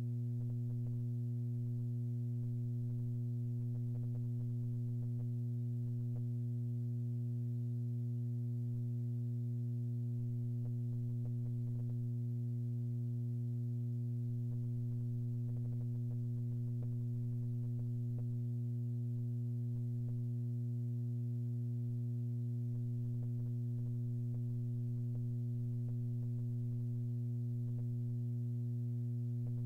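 Steady electrical hum: a constant low tone with a row of overtones above it, holding unchanged throughout.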